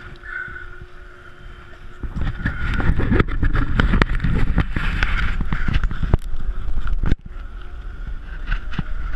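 Handling noise from a chest-mounted GoPro Hero 3 as it is moved: a loud scraping rustle of the housing rubbing on jacket fabric, with many sharp knocks, starting about two seconds in and cutting off suddenly a little after seven seconds.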